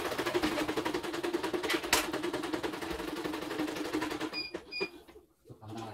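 Embroidery machine stitching at speed, a steady hum with rapid needle ticking, which stops about four seconds in and is followed by two short electronic beeps.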